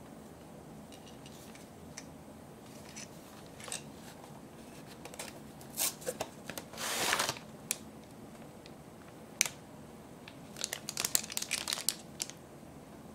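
A small cardboard box being opened by hand, with a short tearing rasp about halfway through, then a thin plastic bag crinkling in a run of crackles near the end, along with scattered light clicks and taps.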